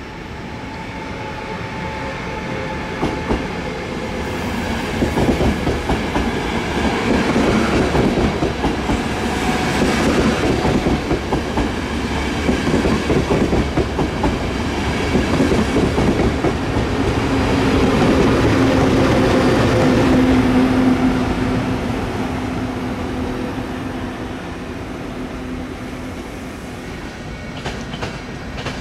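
ÖBB REX regional express train running along the platform, its wheels clacking over the rail joints. The rumble builds, is loudest a little past the middle with a steady tone running under it, then eases off.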